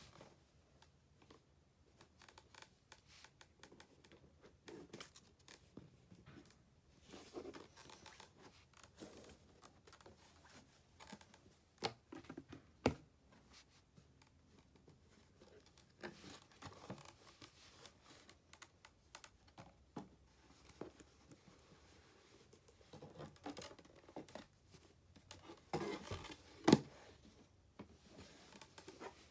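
Hands handling the packaging of a boxed handbag: intermittent rustling, scraping and crinkling of paper and box, with a few sharp taps about halfway through and near the end.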